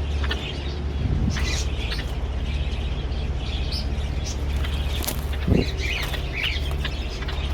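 Small caged aviary birds chirping in short, scattered calls over a steady low hum, with a couple of brief soft knocks.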